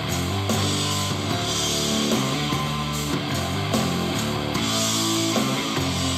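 Rock music with guitars, played back through a Bluetooth speaker as a sound demo.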